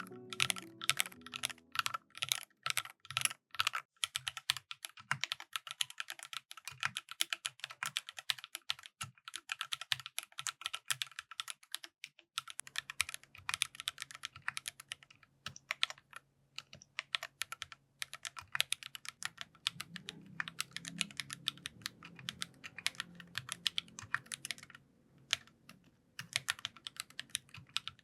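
Typing on a mechanical keyboard with lightly lubed AKKO CS Rose Red linear switches in a full-aluminium Tofu65 case with an aluminium plate: a quick, steady run of sharp keystrokes, broken by a couple of brief pauses.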